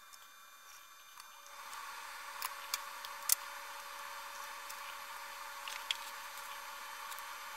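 Quiet, scattered clicks and ticks of hand wiring work: wires being twisted into a small metal control box and a pair of wire strippers being handled. The clicks come in a cluster a few seconds in and again near the end, over a steady hiss that starts about a second and a half in.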